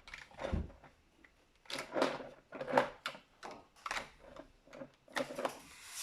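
Lego brick puzzle box being handled and pressed: a low knock near the start, then several clicks and rattles of plastic bricks, the loudest about three seconds in, and a scraping rub near the end.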